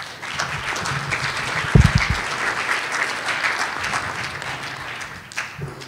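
Audience applauding, with many overlapping claps that fade out near the end. A low thump sounds about two seconds in.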